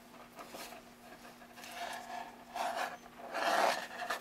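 Packaging and merchandise being handled: a few short bouts of rustling and rubbing, the loudest about three and a half seconds in.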